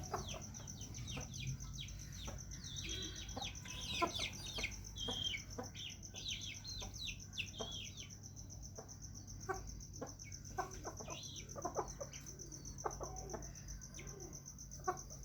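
Chickens clucking and calling in short, scattered notes, over a steady high pulsing drone like insects and a low hum.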